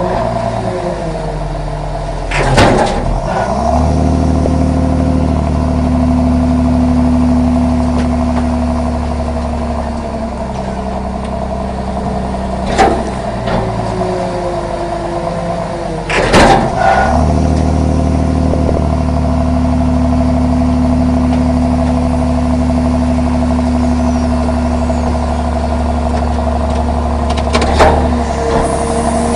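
Heavy trash compactor running and compacting bags of diapers: a steady mechanical hum that shifts up and down in pitch as the ram loads and eases, in two long cycles, with sharp clanks, the loudest near the start and about halfway through.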